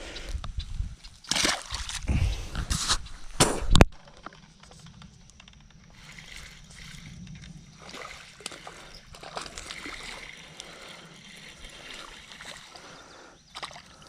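Water splashing and sloshing in several loud bursts over the first four seconds as a small bass is landed at the water's edge, then cutting off suddenly to a faint, steady outdoor background.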